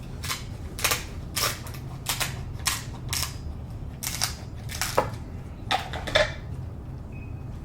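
Close-miked chewing of a mouthful of seafood boil: wet, sharp smacking and crunching clicks at an irregular pace, about two a second, stopping near the end.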